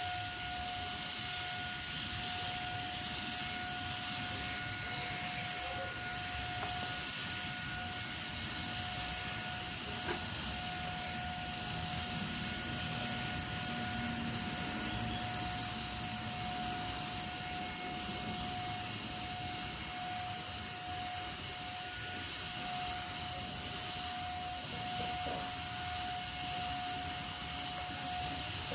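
Electric paint spray machine running and spraying: a steady hiss with a steady whine over it.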